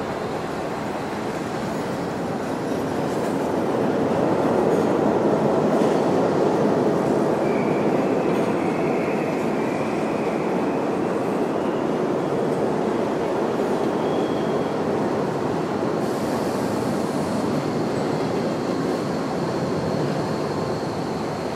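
Subway train running through a station: a steady train noise that grows louder a few seconds in, with faint high wheel squeals over it.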